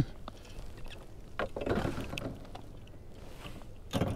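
A white bass swung aboard a plastic kayak and handled: a sharp knock at the start, then scattered taps, clicks and rustling of the fish, line and rod against the hull, with another knock near the end.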